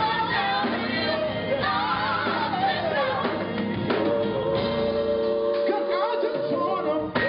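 Gospel vocal group, a male lead with female backing singers, singing live over instrumental backing. There is a long held note about five seconds in, the low backing notes fall away about six seconds in, and the performance breaks off abruptly near the end.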